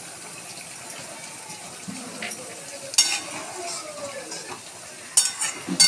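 A metal spoon stirring fish curry in a metal karahi on the stove, over a steady hiss, with three sharp clinks of spoon on pan, one about halfway and two near the end.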